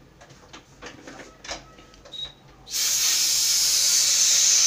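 A few faint taps of a metal fork against a ceramic bowl, then a sudden loud, steady hiss starting a little under three seconds in.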